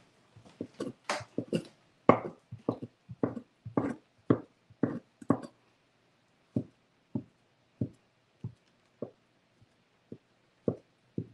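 Kitchen knife chopping vegan cheese on an end-grain wooden cutting board. A quick, uneven run of knocks comes first, then slower single chops about every half second.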